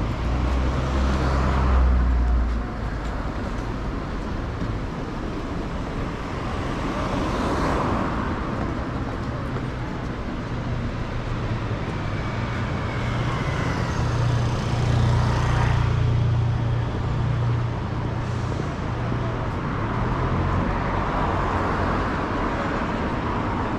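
Road traffic on a city street: several vehicles pass one after another, and a low engine hum runs through the middle stretch.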